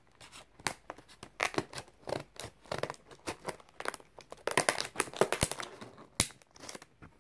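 Stiff clear plastic blister packaging of a Greenlight diecast car being handled and worked open, crinkling and crackling in a rapid, irregular run of snaps.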